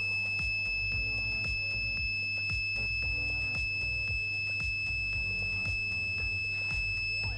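Prusa i3 MK2 printer's buzzer sounding one unbroken high-pitched tone, a temperature-error alarm set off by a faulty reading from the hotend's temperature sensor, over background music with a steady beat.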